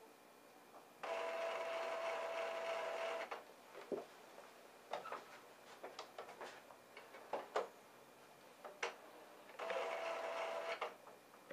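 Epson PX650 inkjet printer running its ink-charging cycle. Its mechanism runs with a steady whirring tone for about two seconds, then for about a second near the end. Irregular clicks and ticks come between the two spells.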